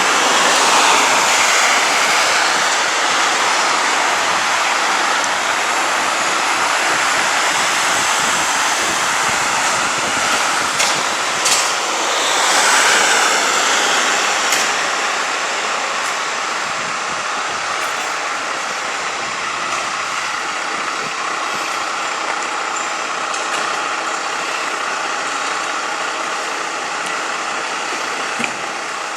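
Heavy fire engines running, with a few short air-brake hisses about halfway through.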